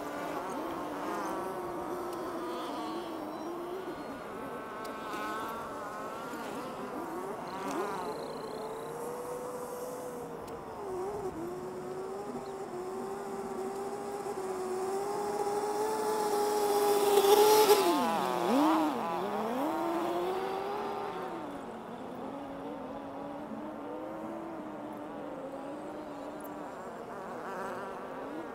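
Small engine running with a buzzing, wavering pitch. It grows louder to a peak about 17 seconds in, dips sharply in pitch, then carries on quieter.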